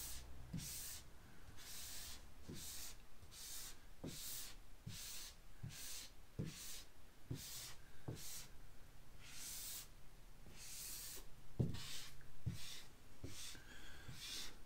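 Hand squeegee swishing across a wet vinyl decal in short repeated strokes, a little more than one a second, pushing soapy water and suds out from under the vinyl.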